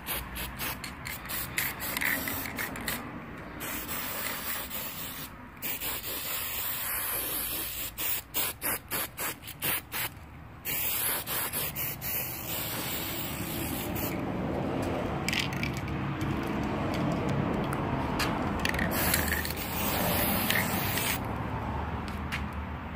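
Aerosol spray-paint can hissing in repeated bursts: a run of quick short puffs near the middle, then longer steady spraying broken by brief pauses.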